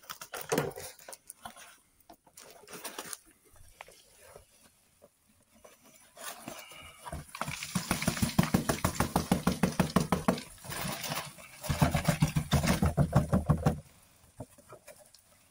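Cardboard box being shaken hard over a plastic tub to knock live red runner cockroaches out, a fast rattling drumming in two spells, the second starting about twelve seconds in. A few separate knocks come before the first spell.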